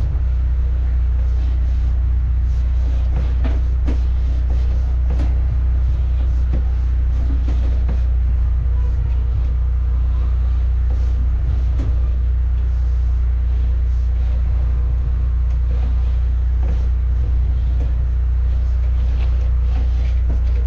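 An engine running steadily at a constant speed, a low drone, with scattered light clicks and knocks over it.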